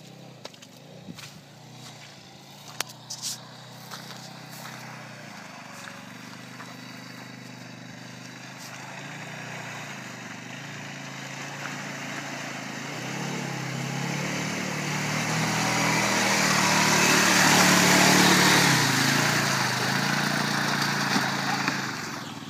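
ATV engine running, its pitch rising and falling with the throttle, growing steadily louder to a peak about eighteen seconds in, then fading away as it passes. A few sharp clicks sound about three seconds in.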